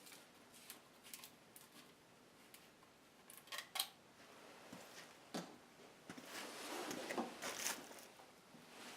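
Faint handling noises: scattered light clicks and knocks, the loudest a quick pair a little past three and a half seconds in, then a longer stretch of rustling clatter around seven seconds.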